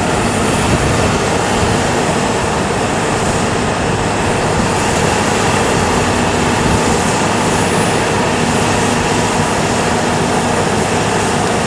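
Jet airliner taking off, a loud steady roar.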